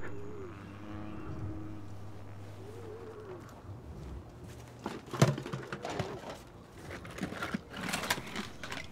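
Score music fades out, and a few low wavering calls sound over a quiet background. From about five seconds in come irregular footsteps, knocks and the clatter of objects being handled on a table, with one sharp knock as the loudest sound.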